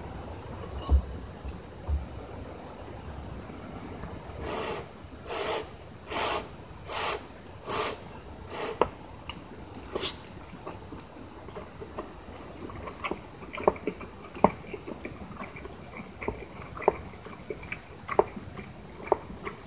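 A metal spoon handled in a ceramic bowl of curry and rice: two dull knocks early, five short breathy puffs about a second apart, then scattered light clicks and taps.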